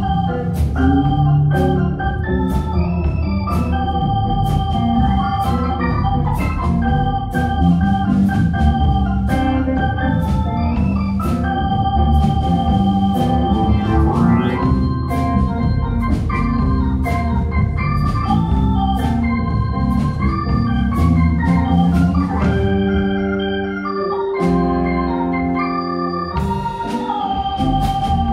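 Live rock band playing an instrumental passage led by an electric organ with a Hammond-style sound, over bass guitar and a drum kit keeping a steady beat with cymbal ticks. Towards the end the beat thins out and held organ chords come to the fore.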